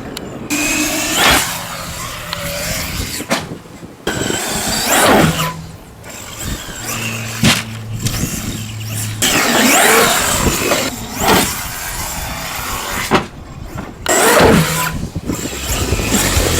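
Traxxas X-Maxx electric RC monster truck driving in bursts: its brushless motor whine rises and falls with the throttle over a rushing noise from the tyres, with brief lulls between runs.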